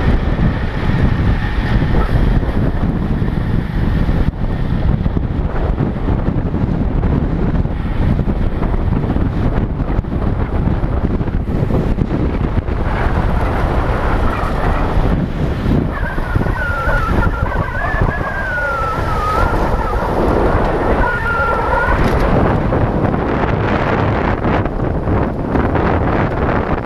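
Heavy wind noise buffeting a helmet-mounted GoPro in an open skeleton housing while riding a road bike at speed. A thin, wavering whistling tone comes and goes for several seconds about two-thirds of the way through.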